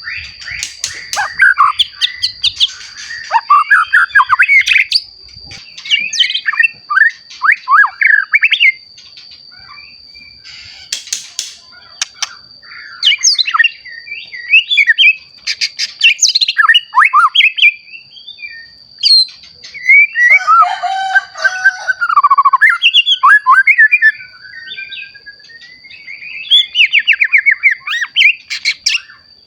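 White-rumped shama (murai batu), a young bird just come into adult plumage, singing a long run of rapid, varied whistled and chattering phrases with short pauses between them, including a harsher passage and a rising slurred whistle about two-thirds of the way in. A thin, steady high tone runs underneath.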